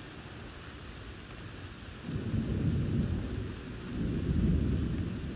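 Thunder rumbling in two long swells, starting about two seconds in, over the steady hiss of rain.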